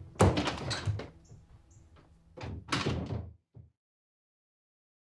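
A door banging: a hard bang at the start, a run of knocks and rattles over the next second, and a few more bangs about two and a half seconds in.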